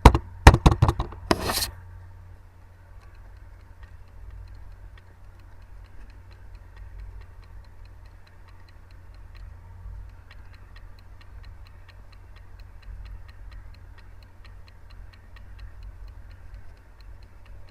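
A few sharp clicks at the start, then faint, regular ticking over a steady low hum.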